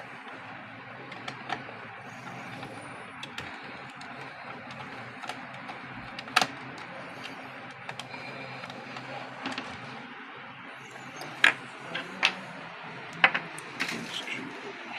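Scattered small clicks and taps of tools and printer parts being handled during the gear repair of a label printer, louder in a cluster near the end, over a steady low background hum.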